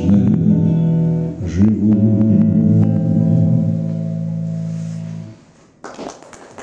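Acoustic guitar strumming the closing chords of a song, the last chord ringing and fading out about five seconds in. After a brief pause, clapping starts near the end.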